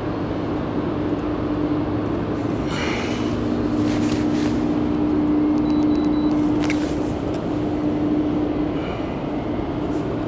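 Steady rushing noise of wind and water on open water, with a low steady hum underneath and a few faint ticks.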